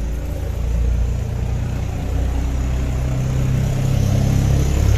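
A low engine rumble from a motor vehicle, growing somewhat louder toward the end.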